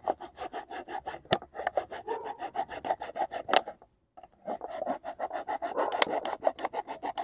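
A knife sawing back and forth through a plastic bottle: quick, even rasping strokes, about six or seven a second, stopping briefly just past the middle and then going on. The stiff plastic is hard going for the knife.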